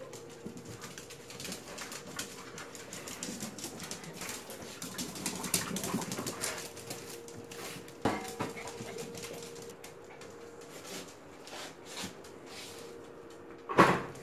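Puppies scampering and playing on a tile floor, with scattered clicks and scuffs. Two short sharp yips stand out, one about eight seconds in and a louder one just before the end.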